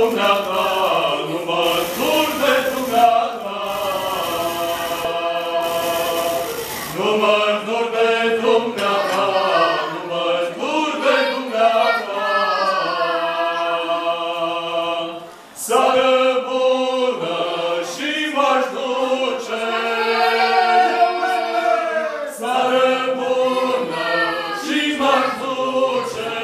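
A small male vocal group singing a cappella, slow, with long held notes. The singing breaks off briefly about fifteen seconds in.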